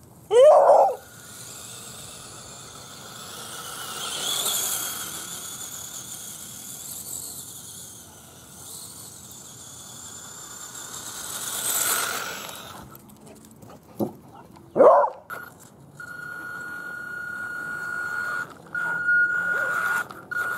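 Beagle barking at a radio-controlled rock crawler: one bark just after the start and two more about two-thirds of the way through. In between and after, the crawler's electric motor whines as it drives over grass, becoming a steady high whine near the end as the truck runs close by.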